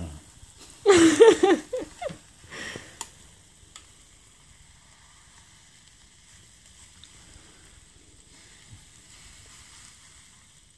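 Tapioca pearls sizzling faintly on the hot plate of an electric waffle maker. A short, loud burst of a person's voice, not words, comes about a second in, with a smaller one shortly after.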